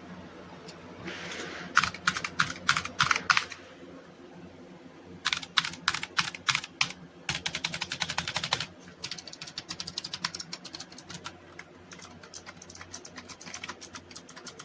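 Typing on a Razer Huntsman Mini keyboard's clicky optical switches: sharp key clicks in short groups, a fast flurry of rapid keypresses in the middle, then lighter, quieter typing toward the end.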